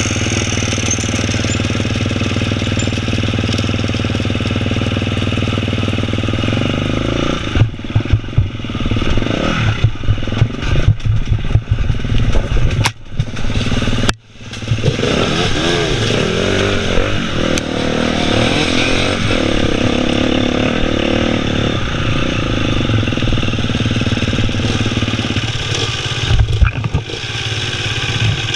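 KTM enduro motorcycle engine running steadily, then revving up and down unevenly with rough knocks and clatter, cutting out briefly about halfway through before running steadily again, with more uneven revving near the end.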